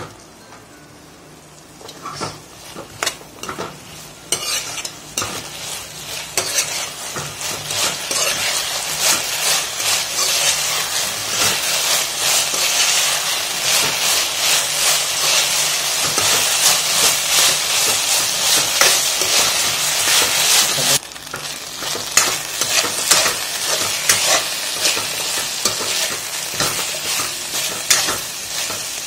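Veg Manchurian balls sizzling in a thickening soy-chilli sauce in a nonstick wok, with a spatula stirring and scraping through them in frequent clicks. The sizzle builds up after the first couple of seconds and eases a little about 21 seconds in.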